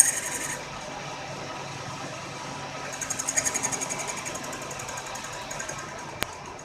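Lathe running under power while a threading tool re-cuts a damaged screw thread on the workpiece. Stretches of fast, high ticking come from the cut, and there is a single sharp click shortly before the end.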